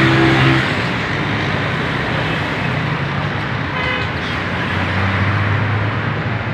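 Steady road traffic noise from passing vehicles, with a low engine hum, and a brief high-pitched tone about four seconds in.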